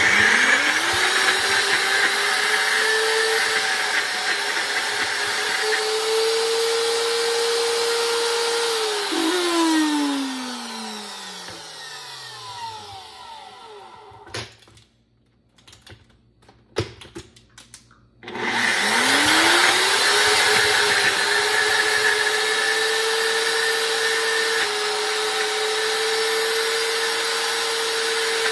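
NutriBullet Rx blender motor spinning up and running steadily, blending green peas and carrots. About nine seconds in it shuts off and winds down with a falling pitch. After a short pause with a few clicks it spins up again and runs on.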